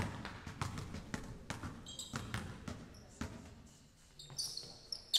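A basketball bouncing on a hardwood gym floor as the shooter dribbles at the free-throw line: a run of sharp bounces that thins out after a couple of seconds, with a few short high squeaks around the middle and near the end.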